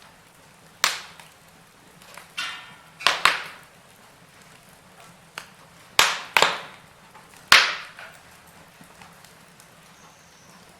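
Firewood burning in a fireplace, crackling with about seven sharp pops and snaps spaced unevenly over a quiet background.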